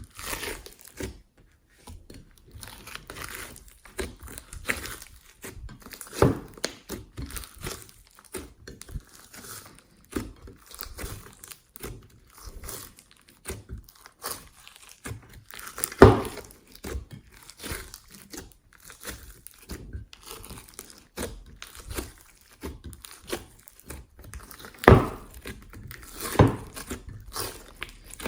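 Hands kneading and stretching glossy slime mixed with clay, glitter and foam: a steady run of sticky crackles and small clicks, with louder pops about 6, 16, 25 and 26 seconds in.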